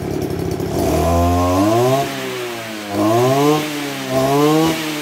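Kioritz SRE2310 23cc two-stroke brush cutter engine, blade spinning, going from idle to full throttle about a second in, then dropping back and revving up again, three high-revving bursts in all.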